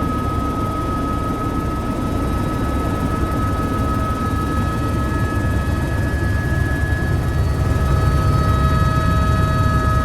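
Helicopter running: a steady rapid beat of the rotor under a constant high turbine whine, growing a little louder over the second half.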